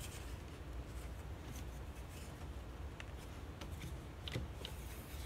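Faint clicks and rubbing as a one-handed bar clamp is squeezed tight and the wooden frame pieces shift in the jig, with a few sharper clicks past the middle, over a low steady hum.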